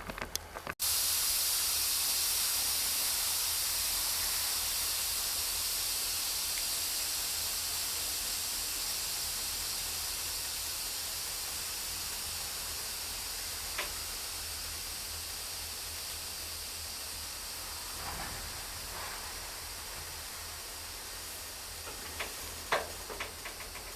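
Compressed air hissing steadily out of a train's air brake system. It starts suddenly about a second in and slowly fades.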